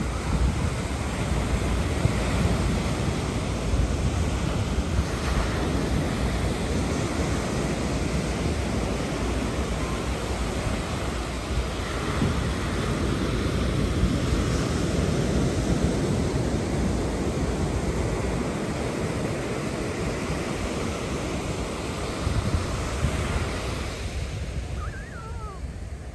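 Ocean surf breaking and washing up on the beach in steady, rolling surges, with wind buffeting the microphone.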